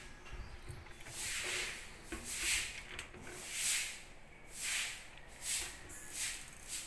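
Short rubbing swishes, about six of them roughly a second apart, from a hand sliding over and handling kitchen cabinet doors and fittings.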